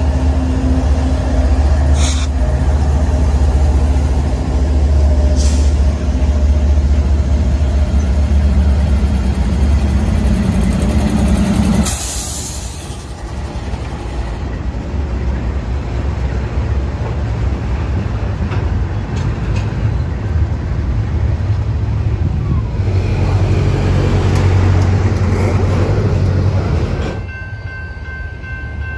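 Several BNSF diesel freight locomotives passing at close range, their engines running with a deep steady drone over rolling wheel and rail noise. The sound changes abruptly about twelve seconds in and drops in level near the end.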